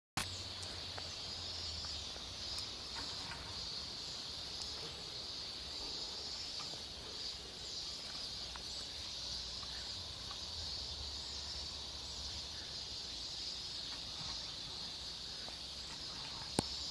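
A steady, high-pitched chorus of insects droning without a break, over a faint low rumble, with one sharp click near the end.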